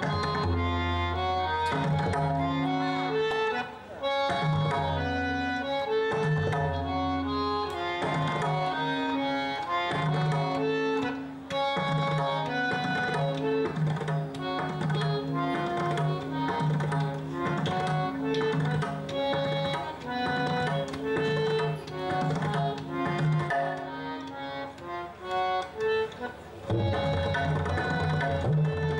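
Tabla playing a rela, the fast rolling tabla composition, over a harmonium repeating a short held-note melody as the lehra. Deep resonant bass-drum strokes come through in the first few seconds and again near the end.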